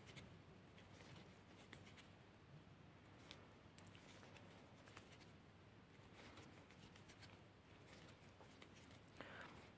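Near silence, with faint scattered clicks and rustles of a crochet hook working yarn through stitches.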